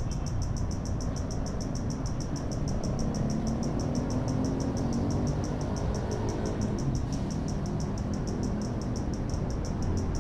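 An insect chirping in fast, even high pulses, over the steady low rumble of city traffic. A vehicle engine passes through the middle, its pitch rising and then falling away.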